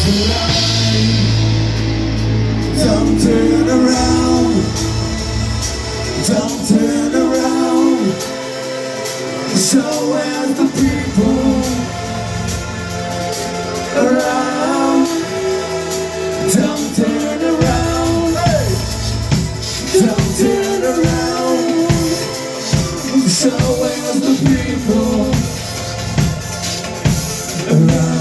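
Live rock band playing loudly, with drums, bass and guitars under a bending melodic lead line.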